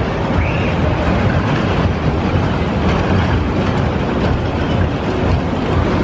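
Fairground ride cars running along their steel track, a steady loud rumble.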